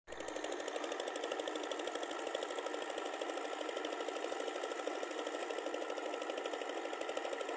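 Farm tractor's engine running steadily with a fast, even pulsing chatter as the tractor works through a flooded rice paddy on cage wheels during a second round of tillage.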